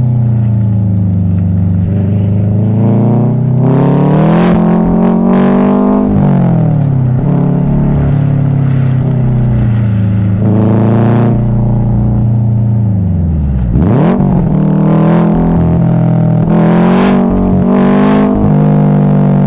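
Subaru WRX STI's boxer flat-four engine pulling through the gears under a manual driver's foot, its uneven rumble rising and falling in pitch with each gear change. There are several sharper throttle surges, and about two-thirds of the way through the revs drop low and climb again.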